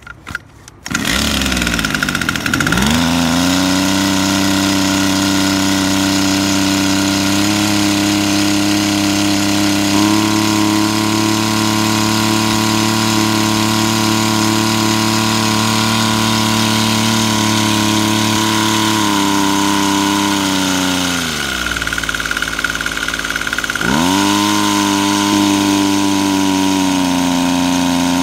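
Maruyama MS0450 backpack power sprayer's small engine pull-started, catching about a second in and revving up to run fast, driving the spray pump. About twenty seconds in it drops to a low idle, then revs back up a few seconds later.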